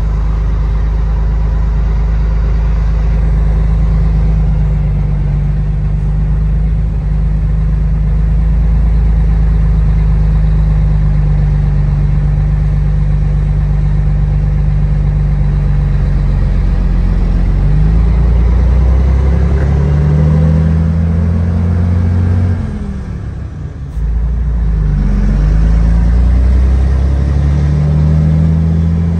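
Scania 112's straight-six diesel heard from inside the cab, running steadily at low speed with the truck empty. From about 18 seconds in, the engine speed climbs, drops off briefly around 23 seconds, then climbs again as the truck pulls away.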